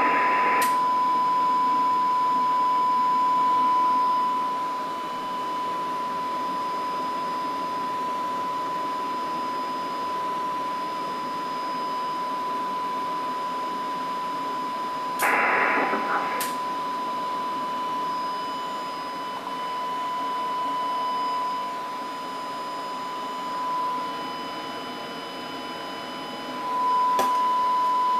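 A steady 1 kHz single test tone, the audio driving the IC-7300 transmitter on single sideband into the tube amplifier, over an even background hiss. Sharp switching clicks come at the start, twice around the middle and once near the end.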